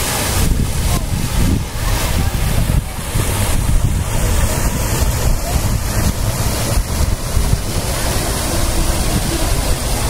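Artificial rock waterfall splashing into a swimming pool, a steady rush of water, with wind buffeting the microphone in a fluctuating low rumble.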